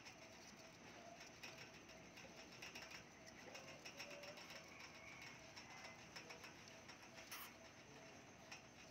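Faint, irregular clicking and rustling of hamsters moving through wood-shaving bedding and nibbling seed mix in a food bowl, with one sharper click near the end.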